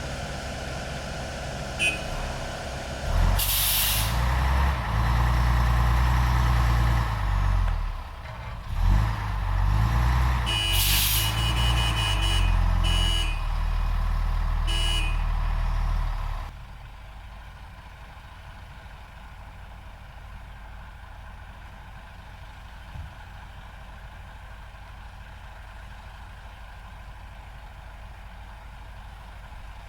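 Heavy diesel engine of the recovery machinery working hard, revving up and down several times, with a few short bursts of high hiss. About 16 seconds in it drops suddenly to a low, steady hum.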